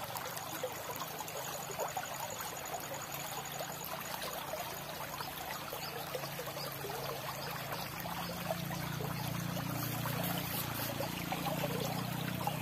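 Small shallow stream running over stones, a steady trickling of water.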